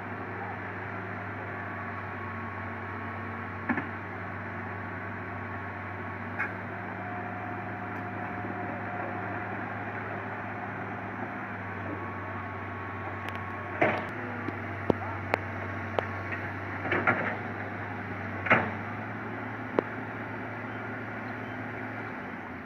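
Hitachi Zaxis 200 long-arm excavator's diesel engine running steadily, with a scatter of sharp knocks and clanks, several close together in the second half.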